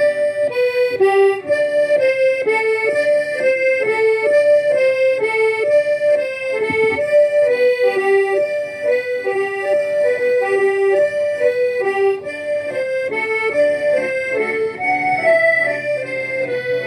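Gaita ponto diatonic button accordions played together, carrying a waltz melody with chords underneath.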